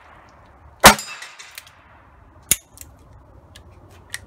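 A Ruger Blackhawk .357 Magnum single-action revolver firing one shot about a second in, loud with a short ringing tail. A quieter sharp report follows about a second and a half later, then a few light metallic clicks.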